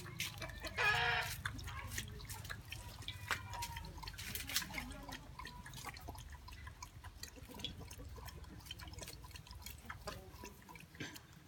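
A dog eating off the ground, with a run of quick wet smacking and chewing clicks. A short, louder pitched cry sounds about a second in, over a steady low rumble.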